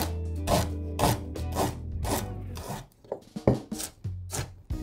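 Chef's knife chopping fresh ginger on a wooden cutting board: a run of short knife strikes, about two a second.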